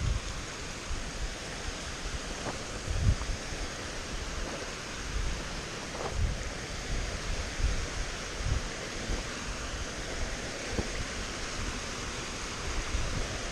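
Steady rush of a mountain stream tumbling down a cascade of small falls, with irregular low gusts of wind buffeting the microphone.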